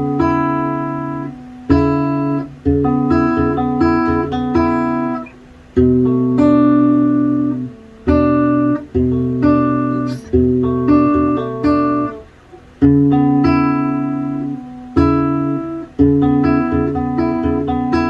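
Stratocaster-style electric guitar playing a slow chord progression: a chord struck about every one to two seconds and left to ring and fade before the next.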